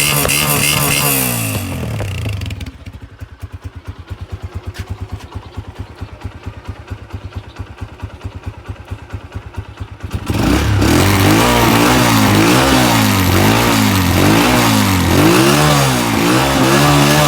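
Honda CG 125's single-cylinder four-stroke engine running at raised revs, then dropping back to a steady idle with an even put-put of exhaust pulses. About ten seconds in, it is revved up and down repeatedly, roughly once a second, about eight times.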